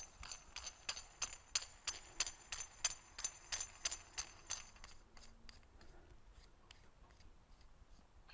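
Threaded aluminium collar on a QA1 coilover shock body being spun down the threads by hand, giving light metallic clicks about three a second with a faint ringing. The clicking stops about five seconds in, leaving a few scattered faint ticks.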